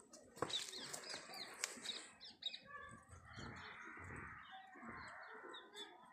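Small birds chirping, with a few sharp clicks in the first two seconds, then a busier, chattering mix of animal calls.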